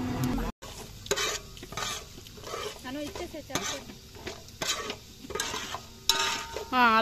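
Steel ladle stirring and scraping mustard seeds, cumin and dal around an aluminium pot, with the seeds sizzling in oil: the tempering stage of a South Indian dish. Near the end comes a brief wavering high-pitched sound.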